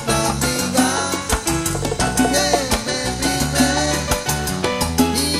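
Salsa band playing live: a steady beat with bass, percussion and melodic instruments, in an instrumental stretch of the song.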